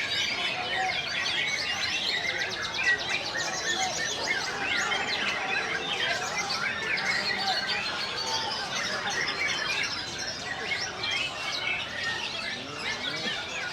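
Many caged white-rumped shamas (murai batu) singing at once: a dense, unbroken mix of overlapping whistles, trills and chirps.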